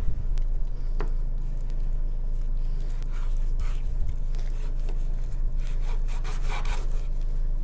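Knife cutting and scraping raw chicken on a cutting board to trim off fat, in short rasping strokes, with a couple of sharp clicks, over a steady low hum.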